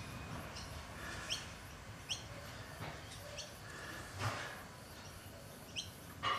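Birds chirping: short, quick rising chirps repeat every second or so over steady background hiss. A brief rushing whoosh comes about four seconds in.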